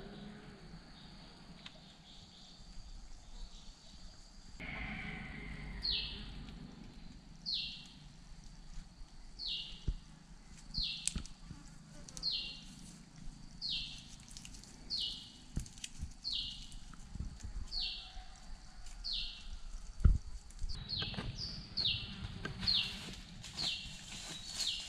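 A bird calling over and over, each note a short high whistle sliding down in pitch, about one a second and quickening near the end. Under it are rustling and light knocks of bamboo poles being handled, with one sharp thump about twenty seconds in.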